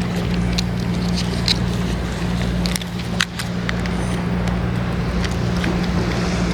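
A steady low engine-like hum, with a few faint clicks scattered through it.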